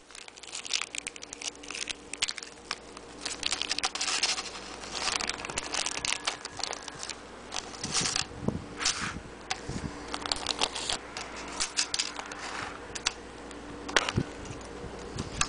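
Rustling, crinkling and scattered small clicks as a lockpick set's picks are taken out and handled.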